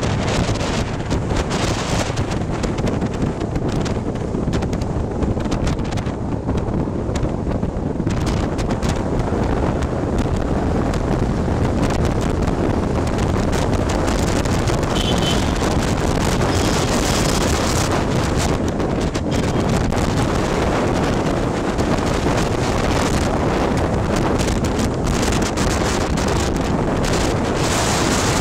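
Wind buffeting the microphone of a camera on a moving motorcycle, with the bike's engine running underneath in a steady rush of noise. The sound grows brighter for a stretch in the middle, while the bike rides through a road tunnel.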